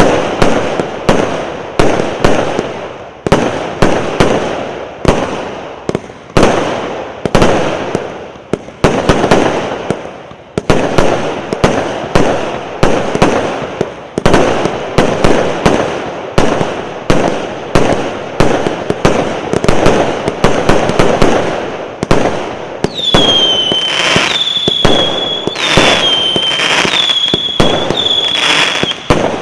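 'Krutoy' SP0810001 consumer fireworks battery from Vostochny Express firing its shots in sequence, about one bang a second, each trailing off. In the last six seconds the shots come with high, steady whistles, five in a row.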